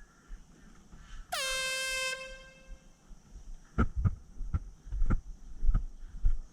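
One blast of an air horn, about a second long, dipping slightly in pitch as it starts and then trailing off; in an airsoft game it is the game-control signal. A run of dull thumps follows in the second half.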